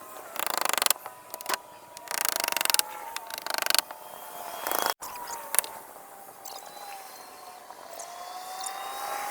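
Roof-repair tool work: three short rattling mechanical bursts in the first four seconds, with a few sharp clicks, then a quieter stretch.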